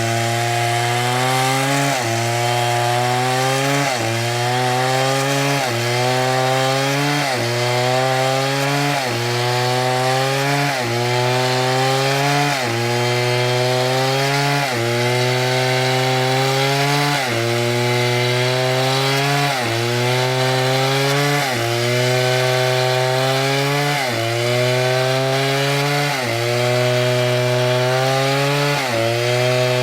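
A large STIHL chainsaw cutting wood. The engine pitch repeatedly sinks as it loads up in the cut and jumps back up, about once a second.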